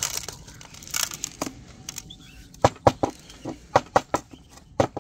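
Gravelly potting grit pours from a paper funnel into a small succulent pot, rattling onto the soil. From about halfway through, the pot is knocked sharply on the tabletop about six times to settle the mix.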